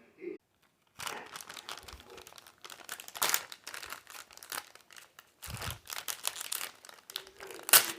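Dried seaweed snack and its packaging crinkling and crackling as it is handled, in irregular bursts with louder crackles about three seconds in and near the end.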